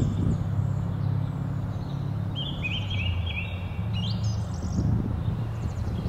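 A small songbird singing a quick run of short, repeated chirping notes, then one higher rising note, about two to four seconds in, over a steady low hum.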